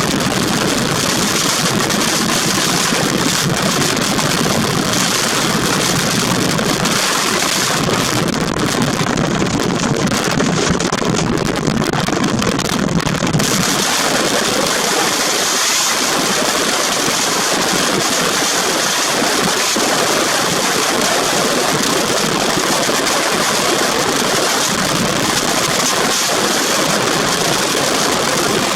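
Strong wind blowing, a loud steady rushing noise that does not let up.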